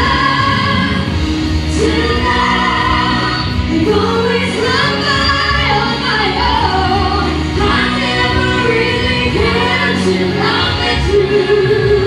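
Vocal trio of two women and a man singing a pop ballad in harmony into microphones over a steady instrumental backing.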